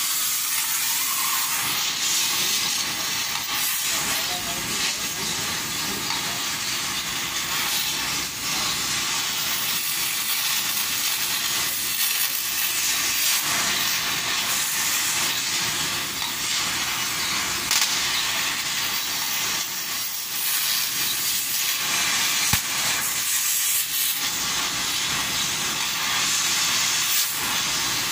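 Stick-welding arc on a steel loader bucket, a steady hiss with a few brief dips.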